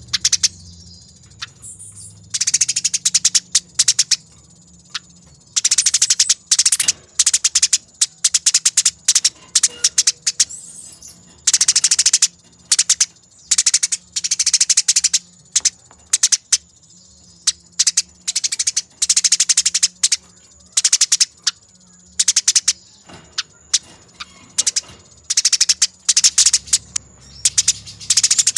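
Eurasian tree sparrows chattering in a fight: bursts of rapid, high-pitched rattling chirps, a second or two long, following one another with only brief pauses.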